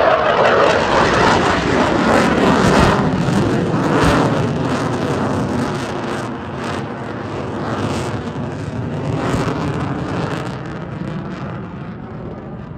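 F-22 Raptor's twin afterburning turbofan jet engines in a loud rumble as the fighter passes, loudest in the first few seconds and then slowly fading.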